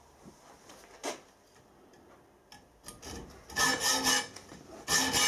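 Hand hacksaw cutting steel threaded studding clamped in a bench vise: fast back-and-forth rasping strokes that start about three and a half seconds in, with a short break before they resume. The blade is one the owner feels is due for replacing. A single knock sounds about a second in.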